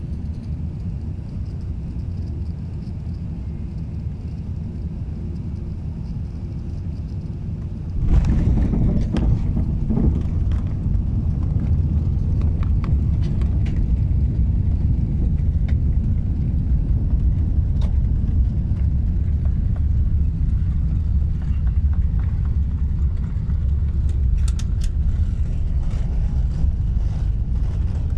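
Airbus A380 cabin noise on landing: a steady low hum from the engines and airflow, then about eight seconds in a sudden, louder rumble with scattered rattles as the landing roll on the runway begins.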